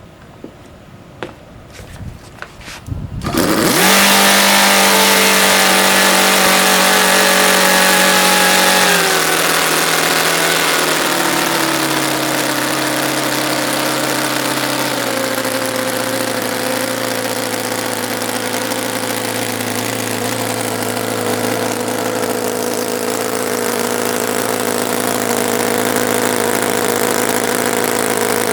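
TechnoPower 9C 1/5 scale nine-cylinder four-stroke glow-plug radial engine with its propeller: after a few clicks it spins up and catches about three seconds in, running loud and fast. Its speed then drops in several steps to a slower steady run.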